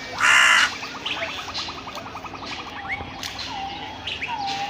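Birds chirping and calling, with short rising and swooping whistled notes. A loud harsh call comes just after the start, followed by a rapid clicking trill lasting about a second and a half.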